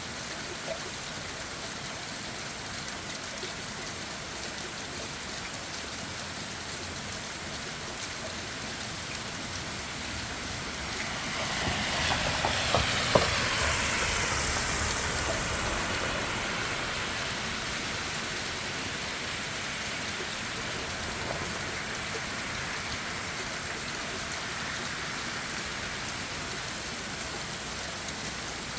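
Steady rain falling on leaves and ground. About ten seconds in, a passing vehicle swells, its pitch falling as it goes by, then fades over several seconds. There is a sharp click near its loudest point.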